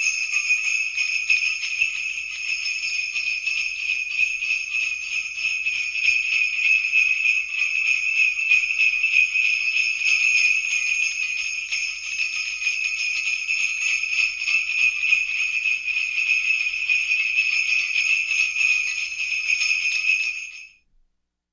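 Sleigh bells jingling in a continuous shaking rhythm, a bright metallic shimmer that stops near the end.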